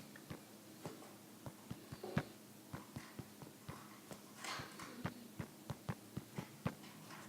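Irregular light taps and clicks on the iPad's screen, about two or three a second, with a soft brushing sound about four and a half seconds in.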